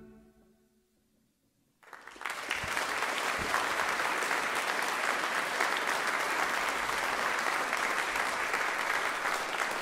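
The fading ring of the ensemble's final chord, a brief hush, then a concert audience breaking into applause about two seconds in and clapping steadily.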